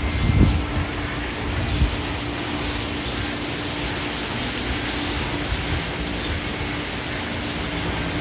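Steady rushing noise of storm wind and rain, with a few low gusts buffeting the microphone in the first two seconds.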